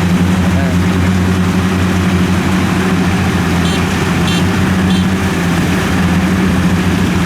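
Kubota DC70 combine harvester's diesel engine running steadily with a low, even hum.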